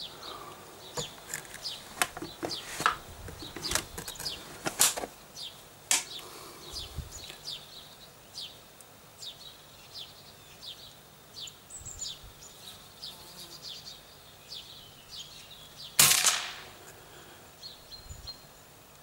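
A suppressed bolt-action .22LR rifle (Zastava CZ99 with a SAK silencer, subsonic ammunition) fires one shot about three-quarters of the way through: a single sharp report with a brief ringing tail, the loudest sound here. Small wild birds chirp throughout.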